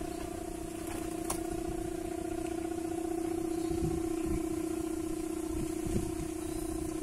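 Sawangan, the bamboo hummer on a Madurese kite, droning a steady low tone with a slight waver, a snore-like sound, over low wind rumble.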